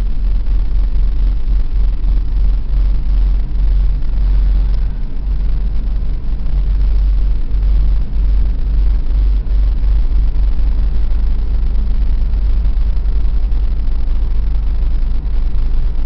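A moving vehicle heard from inside its cab: a steady, heavy low rumble of engine and road noise.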